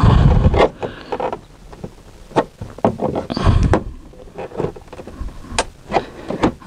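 Plastic interior trim of a Tesla Model S being pried at with a long metal pry tool: a string of sharp clicks and knocks, with a heavier thump right at the start and another about three and a half seconds in.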